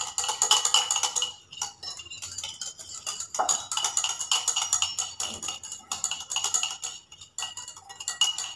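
Wire whisk beating sour curd in a ceramic bowl: rapid, even strokes with the metal clinking against the bowl, pausing briefly twice.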